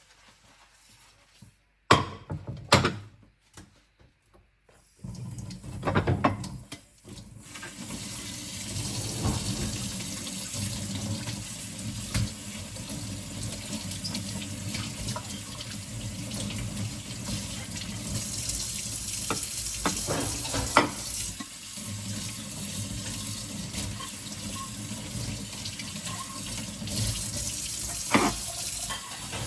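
Dinner plates clattering a few times, then a kitchen tap running steadily from about seven seconds in as the plates are rinsed under it, with occasional clinks of the dishes.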